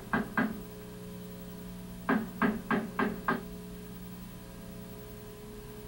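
Claw hammer driving a nail into wooden trim on a log-cabin wall: a couple of quick strikes at the start, then a run of five sharp strikes about a third of a second apart, roughly two seconds in.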